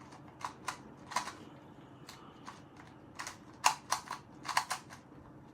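A 2x2 Rubik's cube being turned by hand, its plastic layers clacking in short, irregular clicks, about a dozen of them, coming faster and louder in the second half.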